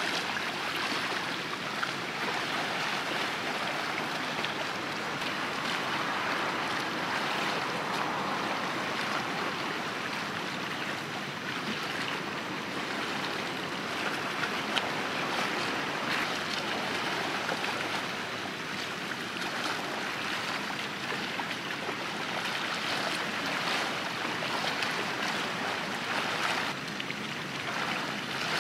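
Steady wash of small waves lapping and splashing.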